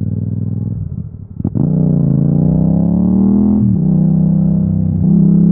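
Yamaha MT-07's 689 cc parallel-twin engine pulling away and accelerating, its pitch rising through the gear, with two upshifts: one past the middle and one near the end.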